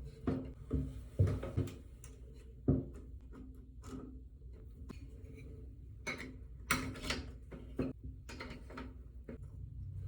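Irregular clicks, knocks and light clatter of hand tools and metal parts being handled at a shower valve during a cartridge replacement. There is a run of sharp knocks in the first few seconds and another a little past the middle.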